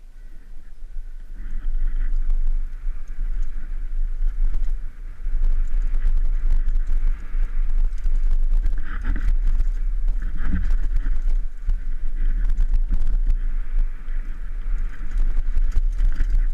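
Mountain bike descending a dirt downhill trail at speed, heard from a helmet camera: tyres rolling and crunching over dirt and loose rock, the bike rattling with many small knocks, and a heavy rumble of wind on the microphone. It picks up about a second and a half in and stays loud.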